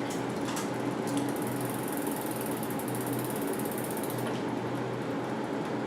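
Mountain bike drivetrain turning steadily with the cranks spun by hand: the chain running over the rear cassette and the derailleur's pulley wheels, with a high hiss that drops away a little past four seconds.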